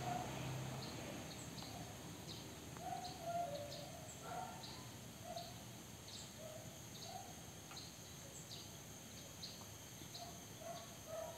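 Faint outdoor background with birds calling: short high chirps repeating about twice a second, with scattered lower notes between them. A low hum dies away in the first second.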